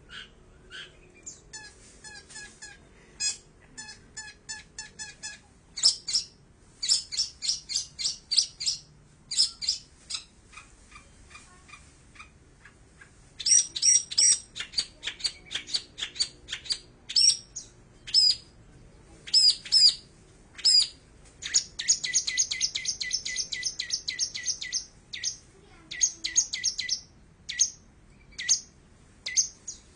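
Long-tailed shrike (cendet) singing: a varied run of sharp chirps and quick repeated notes, with a long, fast, loud trill about three quarters of the way through.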